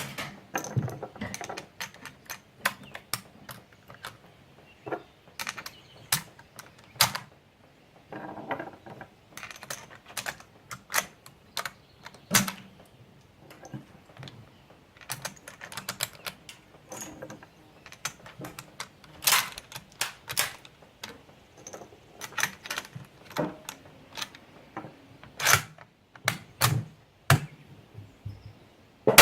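Irregular sharp clicks and clacks, often several a second with short pauses, of rifles and ammunition being handled.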